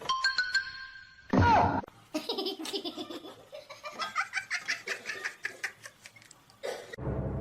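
Laughter: a long run of quick short bursts of laughing. Before it comes a brief ringing tone, then a short loud edited-in sound effect about a second and a half in.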